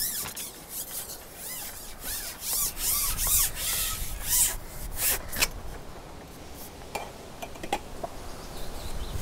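Close handling noise: irregular rubbing and scraping with clicks and a few short squeaks, busiest in the first half and thinning out after about five and a half seconds.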